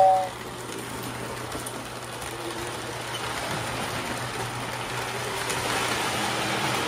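Postwar Lionel 773 Hudson freight train running past on three-rail O gauge track: a steady rumble and clatter of wheels on the rails with a low hum, swelling slightly as the cars go by. The tail of the 2426W tender's two-tone whistle cuts off right at the start.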